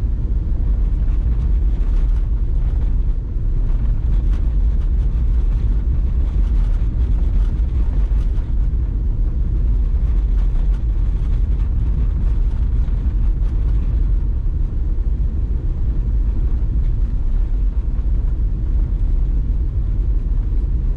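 Cabin noise of a vehicle driving on snow-covered roads: a steady low rumble of engine and tyres with no change in pace.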